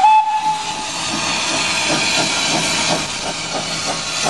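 Small saddle-tank steam locomotive giving a whistle blast that stops about a second in, then chuffing as it pulls its train, exhaust beats at about four a second over a steady steam hiss.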